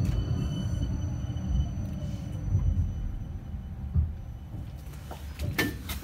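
Cabin rumble of a 71-931M Vityaz-M tram slowing for a stop, with a faint falling whine as it brakes. A few sharp clicks near the end.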